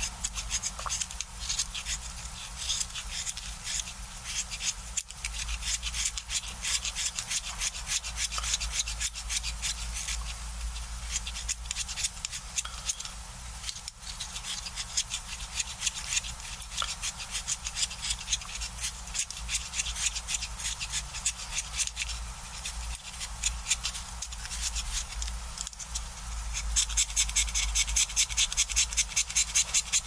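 Utility knife shaving the wood of a green coloured pencil by hand: quick, uneven scraping strokes that settle near the end into a louder, even run of about six strokes a second.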